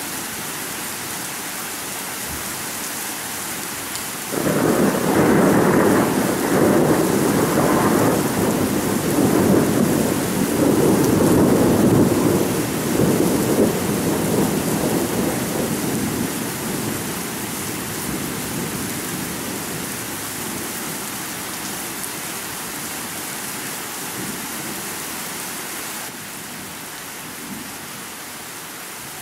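Steady rain with a long roll of thunder that swells up about four seconds in and slowly dies away over the following ten seconds, leaving the rain alone.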